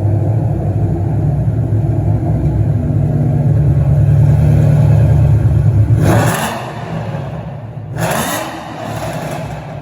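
2011 Ford Mustang GT's Coyote 5.0 V8 idling loudly through a BBK full exhaust system just after starting, with a deep steady rumble. About six seconds in the rumble falls away and quietens, with two brief rushing noises and a short rise in pitch.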